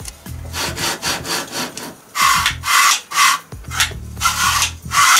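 The CNC router's aluminium table sliding back and forth on its steel guide rods, its linear bearings giving a rasping rub on each stroke, about two strokes a second, louder from about two seconds in. The table is being run along the rails to check that it travels freely.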